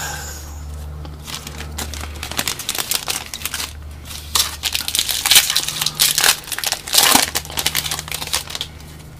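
Foil wrapper of a 2013 Topps baseball card pack crinkling and tearing as it is pulled open by hand: a rapid run of crackles that starts about a second and a half in, is loudest past the middle and tails off near the end.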